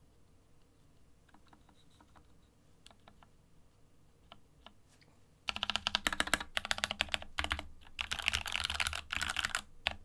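KEMOVE 61 SnowFox 60% mechanical keyboard with lubed Gateron Red linear switches, typed on over a desk mat: a few scattered light keystrokes, then from about five and a half seconds in a much louder fast flurry of key-mashing in two runs with a short break between, ending on a single keystroke.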